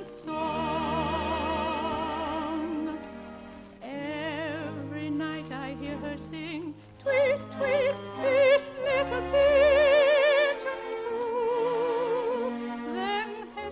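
Operetta singing with orchestra: a high voice holding notes with wide vibrato, broken by a few short, separate notes in the middle, on an old radio broadcast recording.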